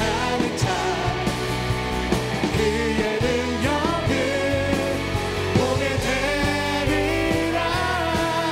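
A live worship band playing a rock-style contemporary praise song, with singing.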